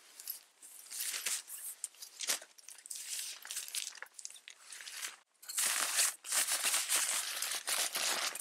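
Teton Sports sleeping bag's fabric rustling and crinkling as it is pulled about and spread out by hand, a busy, irregular rustle that grows louder and denser about five and a half seconds in.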